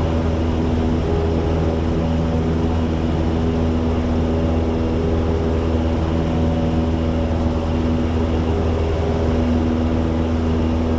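Light propeller airplane's engine and propeller droning steadily at climb power just after takeoff, heard from inside the cockpit.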